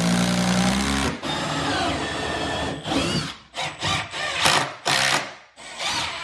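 Cordless drill driving wood screws into a cabinet base and floor cleat. The motor runs steadily and stops about a second in, then gives a string of short trigger bursts in the second half as more screws are driven home.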